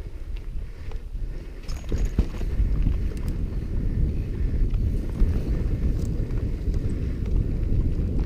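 Wind buffeting the microphone as a mountain bike rides rocky dirt singletrack, with tyre rumble and scattered rattling clicks and knocks from the bike over the rock. It gets louder about two seconds in.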